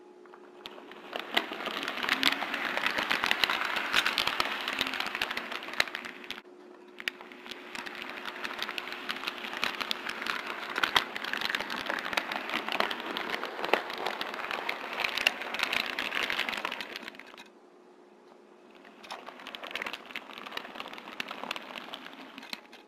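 HO-scale model train cars rolling along the track, picked up by a small camera riding on one of the cars: a dense, fast clicking clatter of wheels on rails and rail joints. It runs in three stretches, stopping briefly about six seconds in, stopping again after about seventeen seconds, and resuming for a few seconds near the end.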